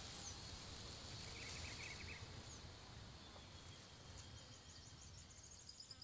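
Faint outdoor ambience: a steady hiss with a low rumble, and small birds chirping in quick runs, one about a second and a half in and another near the end.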